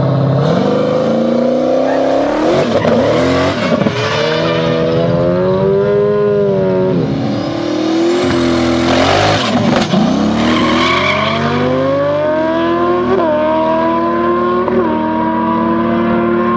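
A turbocharged 408-cubic-inch V8 Trans-Am and a stretched Kawasaki ZX-10 sport bike revving at the start line, then launching and accelerating hard away. The engines climb in pitch, with two gear shifts near the end.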